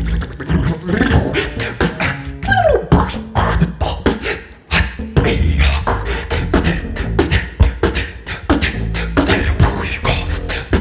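Human beatboxing: fast percussive mouth clicks, hisses and kick-drum sounds in a dense rhythm over low double bass notes, with a short falling vocal slide about two and a half seconds in.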